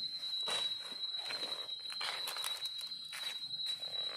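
Footsteps in rubber boots crunching over dry fallen leaves and twigs, a few irregular steps and rustles. A steady high-pitched whine sounds behind them.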